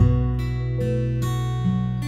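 Background music: plucked guitar notes about two to three a second over a held low bass.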